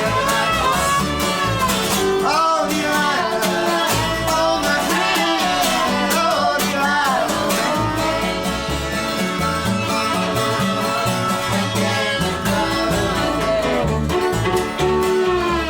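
Live acoustic string band playing an instrumental passage: plucked guitar with bowed viola and bass.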